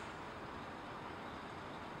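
Steady distant road-traffic noise, an even hum with nothing standing out.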